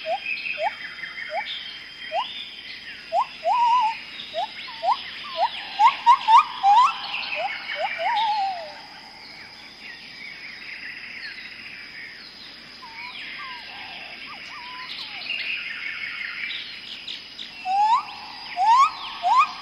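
Amazon rainforest birds calling. One bird repeats short rising whistles about twice a second, then falls quiet for several seconds and resumes near the end, over higher chirping calls and a steady high-pitched tone in the background.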